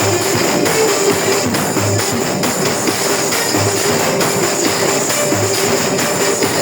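Loud music with a low thump about every two seconds and a held mid-pitched note.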